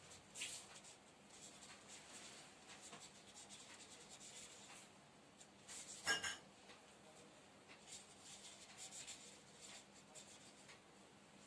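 Faint marker strokes scratching on a paper chart as words are written, in short bursts. There is a brief louder sound about halfway through.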